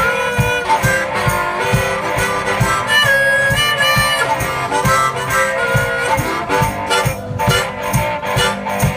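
One-man band playing an instrumental blues: harmonica solo over guitar, with a steady low thumping beat underneath.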